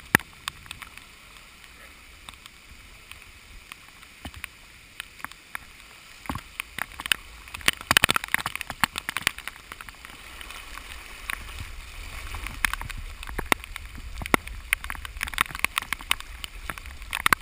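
Splashing and sloshing of feet wading through shin-deep floodwater, with many sharp taps of water drops on the camera housing. The splashing comes in a dense burst about eight seconds in, and a low rumble grows through the second half.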